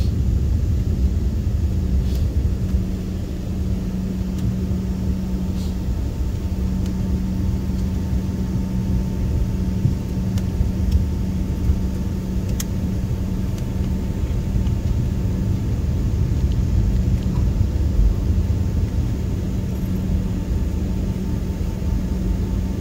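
Cabin noise of an Embraer 145 rolling along the runway after landing: a steady low rumble, with the rear-mounted Rolls-Royce AE 3007 turbofans humming at one steady low pitch. A few faint clicks and rattles come through.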